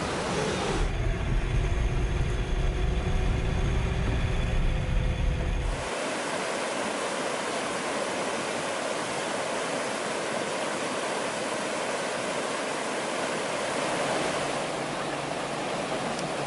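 Mountain river rushing over shallow rapids, a steady even rush of water. For the first few seconds a deep low rumble lies under it, then cuts off suddenly.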